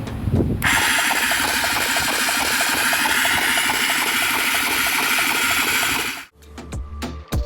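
A fast mechanical ratcheting rattle of a tool, lasting about five seconds and stopping abruptly.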